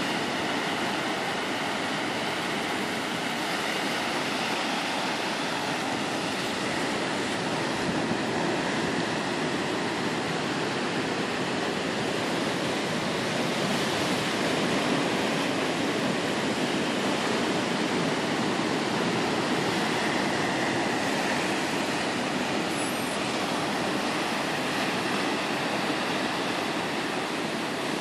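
Ocean surf washing over rocks and into a sandy cove: a steady, continuous rushing wash.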